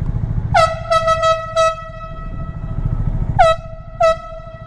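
Air horn blasting and echoing: a long blast re-sounded several times in quick succession, then two short honks near the end. Under it a motorcycle engine idles with a low putter.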